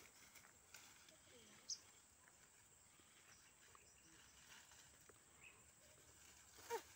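Near silence: faint outdoor background with two short chirp-like calls. The first is a brief high chirp about two seconds in; the second, near the end, falls quickly in pitch.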